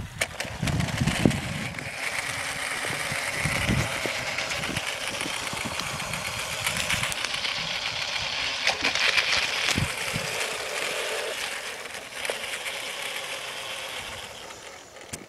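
G-scale model diesel locomotives' electric motors and gearboxes whirring steadily as the train pushes its plow through snow. There are a few low thumps in the first few seconds, and the whirr fades out near the end.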